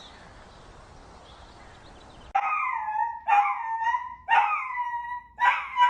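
A dog giving a series of high-pitched whining yelps, about one a second, starting about two seconds in; each call drops in pitch and then levels off.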